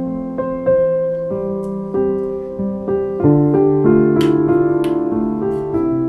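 Solo piano music, with new notes struck about every half second to second and left to ring.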